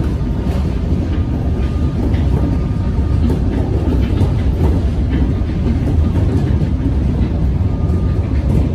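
Melbourne Metro electric suburban train running at speed, a steady deep rumble with faint clicks of wheels over the rails.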